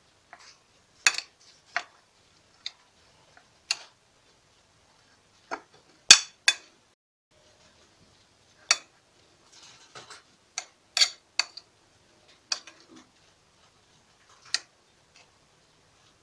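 A metal spoon clinks and scrapes against a ceramic plate while stirring minced onion with spices. There are a dozen or so sharp clinks at uneven intervals.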